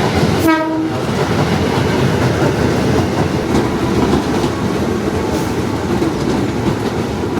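Commuter electric train running along the platform with a steady loud rumble and clatter of wheels on rails, and a brief pitched tone about half a second in.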